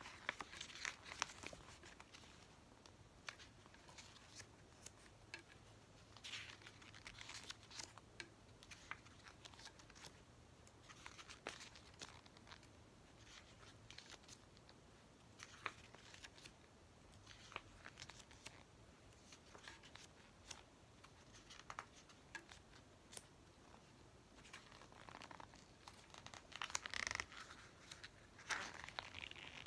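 Glossy photo book pages being turned and smoothed by hand: faint paper rustles and light flicks at irregular intervals, the loudest cluster near the end.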